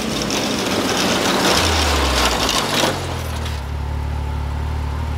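Can-Am Maverick X3 Turbo RR's turbocharged three-cylinder engine running as the tracked side-by-side drives up across the grass, loud and noisy for the first three seconds. It then settles to a steady idle.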